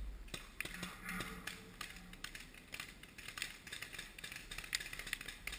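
Paintball markers firing: faint, irregular sharp pops, at times several in quick succession.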